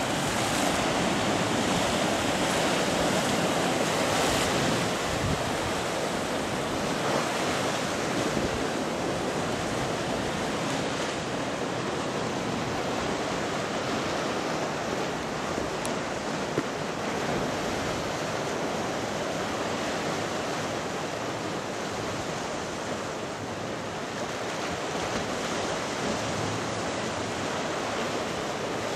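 Sea surf breaking and washing over a rocky shore: a steady hiss and wash of water, a little louder in the first few seconds.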